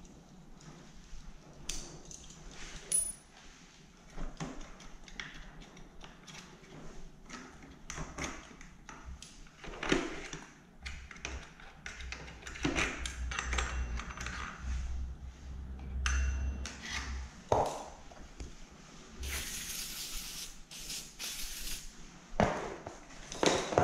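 Metal clinks, taps and scraping as a combination tool picks caked dirt and sawdust off a Makita MEA3201M chainsaw's clutch and bar-mount area, with the bar and chain removed. About twenty seconds in comes a hissing spray from an aerosol can, in two bursts.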